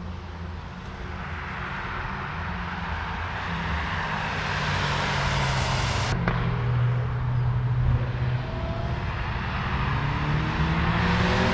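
Cars on a race circuit: engine and tyre noise that grows steadily louder as traffic approaches, with a brief click about six seconds in and a rising engine note near the end as a car accelerates.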